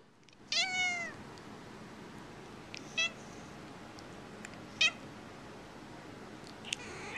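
Domestic cat meowing: a longer, arching meow about half a second in, then short meows roughly every two seconds.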